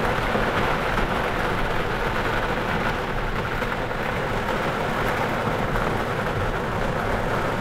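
Heavy rain drumming steadily on a glider's canopy, heard from inside the closed cockpit.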